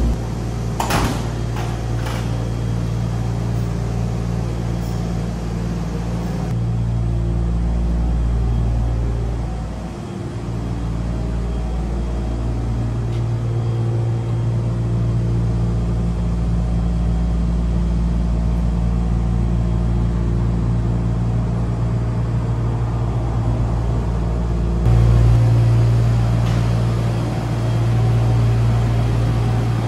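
Monorail station ambience: a steady low hum and rumble, with a couple of sharp clicks about a second in. The hum grows louder near the end.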